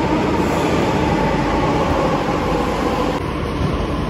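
Delhi Metro train running into an underground platform: a loud, steady rumble with a steady hum over it, dropping a little about three seconds in.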